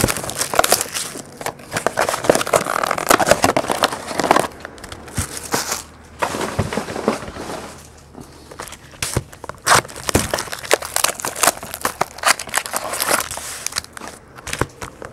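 Crinkling and crackling of a foil-wrapped trading-card pack and its box packaging being handled and unwrapped, in irregular rustles with short lulls.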